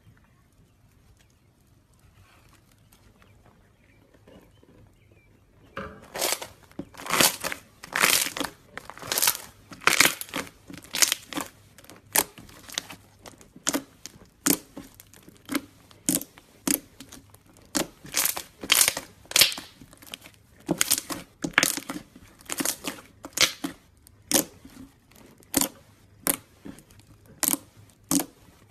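Thick slime being kneaded, pressed and pulled by hands, giving sharp sticky crackles and pops about once or twice a second. It is near quiet at first; the crackling starts about six seconds in.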